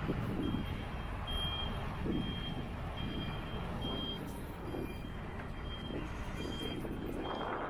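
Vehicle reversing alarm beeping steadily, a little faster than once a second, over a low rumble of traffic and wind. A passing vehicle's noise swells near the end.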